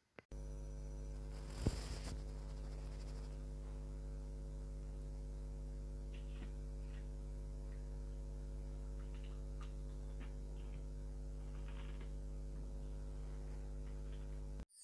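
A steady electrical hum that cuts in and out abruptly, with one sharp click about a second and a half in and a few faint ticks later.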